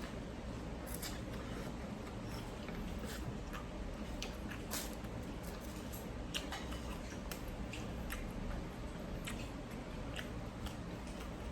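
Someone eating a bowl of noodle soup: scattered light clicks of utensils against the bowl and chewing at irregular intervals, over a steady low hum.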